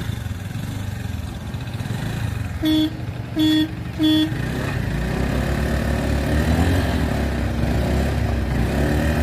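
Two 110 cc Honda scooters, an Activa 4G and an Aviator, running. A horn gives three short beeps about three seconds in. Then both engines rev up and hold there under load as the scooters pull against each other in a tug of war.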